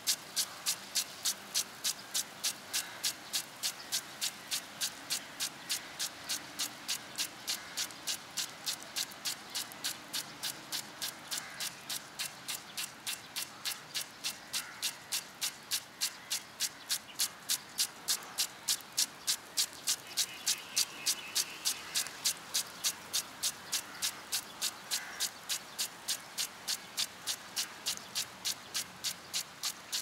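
Impact sprinkler ticking steadily, about three sharp clicks a second, as its spring-loaded arm strikes the water jet and steps the head around, over a faint hiss of spray.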